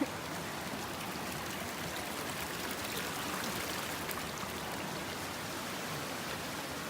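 Stream water running steadily, a constant even rush.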